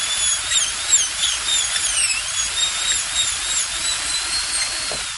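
High-speed dental drill whining as it drills out a cavity in a decayed tooth. Its pitch dips and recovers over and over, and it begins to wind down near the end.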